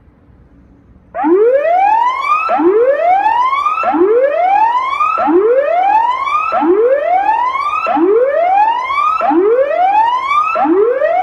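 Electronic tsunami warning siren, sounding during a test, repeating a loud rising whoop about every 1.3 seconds. It starts about a second in, and there are eight whoops.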